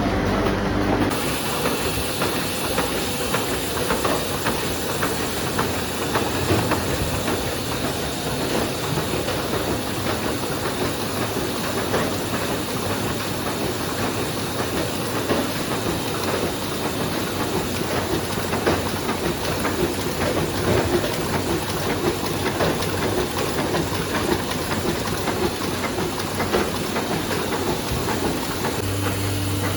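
Offset printing press running: a dense, continuous clatter of rapid mechanical ticks over a steady hiss. A steady low machine hum is heard for about the first second and again near the end.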